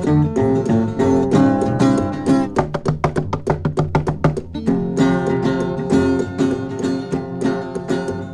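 Instrumental passage of a guitar-led song with a steady beat. In the middle comes a quick run of rapidly picked notes.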